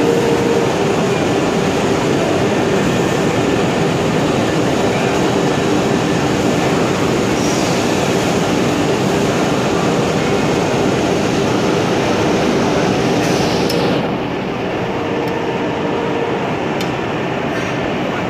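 Steady loud din of woodworking machinery running in an exhibition hall, with a faint steady hum. It dips slightly about two-thirds of the way through, and a few light clicks come near the end.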